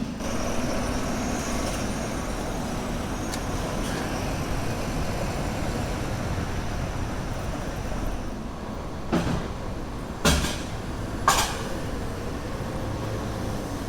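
Steady city street traffic noise, with three short sharp sounds close together near the end.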